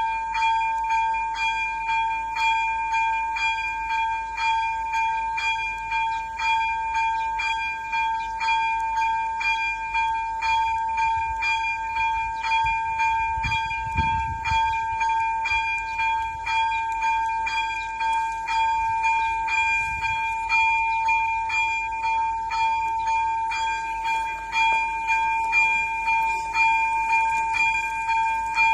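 ZV-02 electronic level-crossing bell ringing continuously in an even, rapid rhythm, warning that the crossing is closed. A low rumble swells and fades about halfway through.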